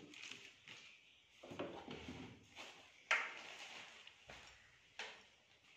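Handling noise as the soundbar is lifted off its subwoofer, with two sharp knocks of hard plastic, the louder about three seconds in and another near the end.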